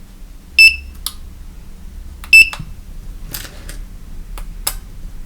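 Two short, high-pitched electronic beeps from the Sonoff T1 UK touch light switch's beeper, about a second and a half apart, each followed by a sharp click, with several more sharp clicks after.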